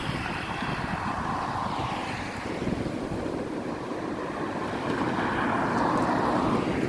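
Strong wind blowing in gusts, swelling louder in the second half, with a low rumble of wind against the microphone.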